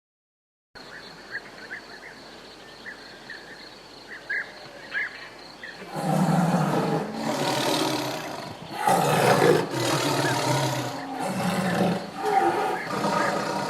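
A few faint high chirps over a quiet background, then from about six seconds in a big cat roaring loudly, a run of long roars one after another.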